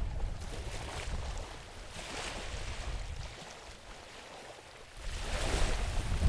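Wind buffeting the microphone in low rumbling gusts that ease off in the middle and pick up again near the end, over a hissing wash that swells twice, from small waves breaking on the fjord shore.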